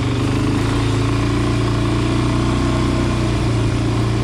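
Dirt bike engine running at a steady, even pitch as the bike rolls along a trail.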